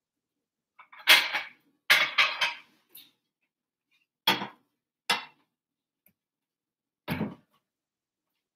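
Kitchen clatter as a ceramic plate and a spatula are handled and set down on a gas stove's grate: about six separate knocks and clinks spread over several seconds.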